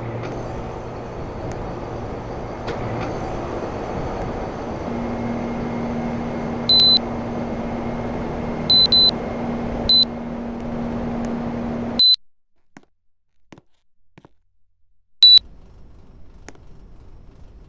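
Air conditioner running with a steady rush of fan air, a low hum joining about five seconds in, and short high beeps from its controls several times. It shuts off abruptly with a beep about twelve seconds in, then beeps once more a few seconds later and a faint hum starts up.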